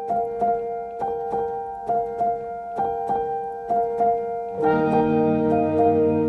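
Background music: a repeating piano figure, joined about four and a half seconds in by fuller sustained chords and bass.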